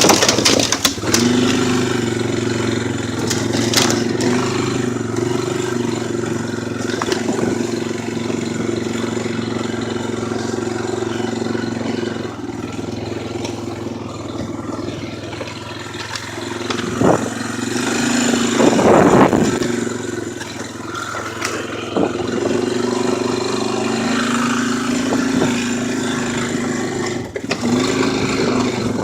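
4x4 ATV engine running under way, its note rising and falling with the throttle. A few sharp knocks and a louder rough rattle come about two-thirds of the way through.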